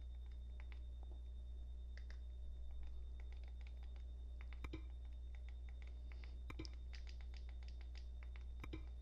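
Faint clicking of remote-control buttons pressed in quick runs while moving across an on-screen keyboard to type a password. The clicks come thicker from about four seconds in, with three heavier clicks near four and a half, six and a half and eight and a half seconds, over a steady low electrical hum.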